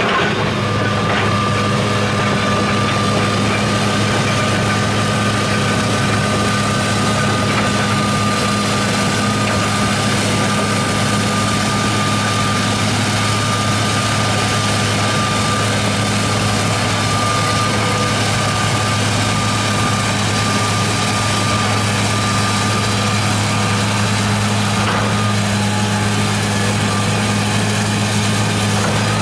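John Deere 200C LC excavator's diesel engine running steadily under working load as the machine digs and tracks over the dirt pile, a deep even hum with a thin steady whine above it for much of the time.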